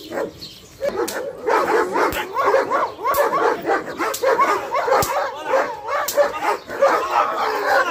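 Large long-haired dog barking and yipping in a rapid, continuous series of short barks, starting about a second in.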